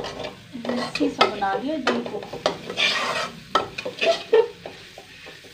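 A slotted metal spatula stirring and scraping thick masala with gram flour as it fries in a metal kadai, with irregular clinks and scrapes against the pan over a light sizzle.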